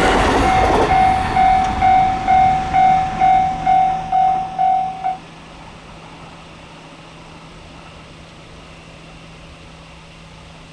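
Level-crossing warning bell ringing in even strokes, about two a second, while the rushing noise of a just-passed train dies away in the first second. The bell cuts off about five seconds in, leaving a faint steady low hum.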